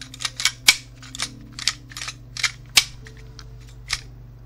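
Slide of an AW Hi-capa gas-blowback airsoft pistol being worked back and forth by hand. It makes a run of sharp clacks about three a second, thinning out in the last second or so. The pistol has just been fitted with a stainless steel firing pin and a steel valve knocker.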